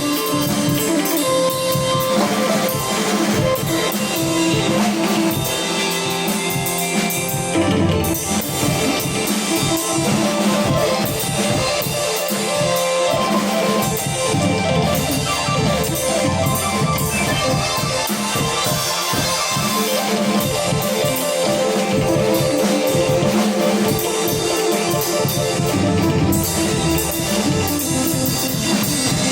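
A band playing an instrumental piece live, with a drum kit keeping a steady beat under repeating plucked guitar-like notes.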